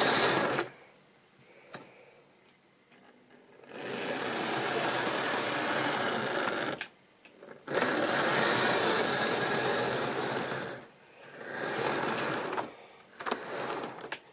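Tri-ang model train running on sectional track: a rattling whir of wheels and motor that swells loud for a few seconds at a time as the coaches pass close, and drops away in between, with a few sharp clicks.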